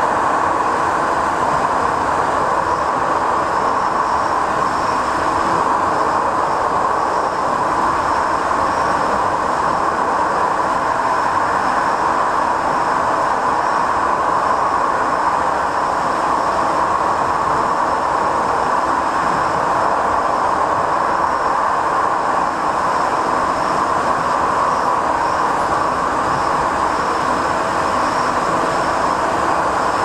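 Inside a Siemens S200 (LRV4) light-rail car running at speed through the Twin Peaks Tunnel: a steady, loud rolling noise of wheels on rail, with a faint high whine above it.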